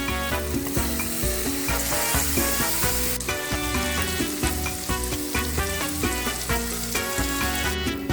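Food frying in a hot pan, a loud sizzling hiss that is strongest from about one to three seconds in, with music playing underneath.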